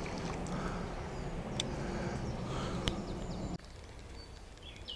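Steady low rumbling noise on the action camera's microphone with a few soft clicks, cutting off abruptly about three and a half seconds in and leaving faint outdoor ambience.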